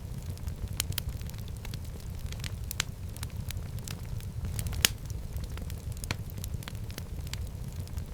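Fire burning in a fireplace: a steady low rumble with frequent crackles and pops. The sharpest pop comes a little before the five-second mark.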